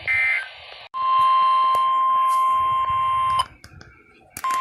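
A brief burst of EAS digital data tones, the last of the end-of-message bursts. After it comes a steady NOAA Weather Radio 1050 Hz alert tone for about two and a half seconds, which cuts off abruptly.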